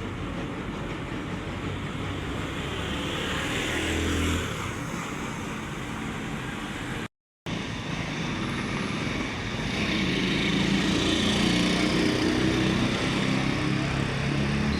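Motor vehicle running, with steady road noise and a low engine drone that grows somewhat stronger in the second half. The sound cuts out completely for about half a second partway through, at an edit.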